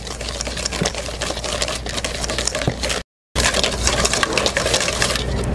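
Wire whisk beating cream by hand in a large stainless steel bowl: a fast, steady clicking and scraping of the wires against the metal, broken by a short dropout about three seconds in.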